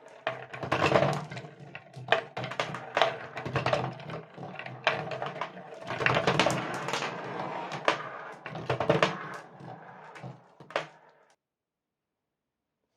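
Glass marbles rolling and clattering along a cardboard marble-run track, with a rolling rumble and many irregular clicks and knocks. The sound cuts off suddenly about eleven seconds in.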